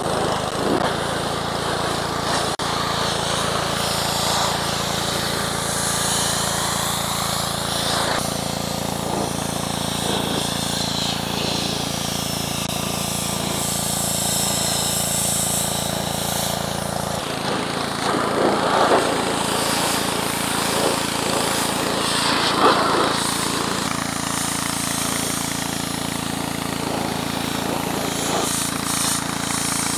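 Pressure washer running steadily, its water jet hissing as it sprays a steel tractor wheel rim and tire. The low motor hum under the spray changes pitch about seventeen seconds in.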